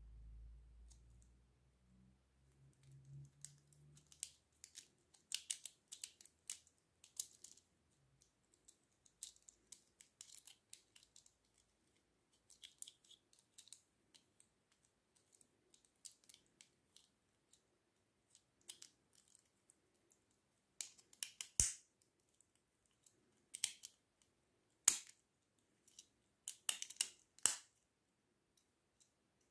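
Small plastic clicks and snaps of a Bakugan toy's hinged parts as it is folded by hand from figure into ball form: an irregular run of light clicks, with a few sharper snaps in the last third.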